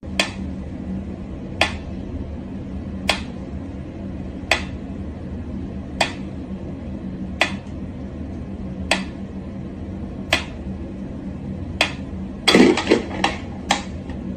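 Sharp, evenly spaced taps, about one every second and a half, over a steady low hum. A quick burst of louder clattering knocks comes near the end.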